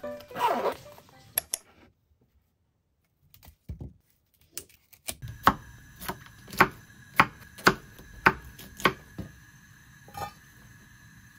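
A fabric lunch bag zipped shut, then a kitchen knife chopping broccoli on a wooden cutting board: about seven sharp chops, roughly two a second.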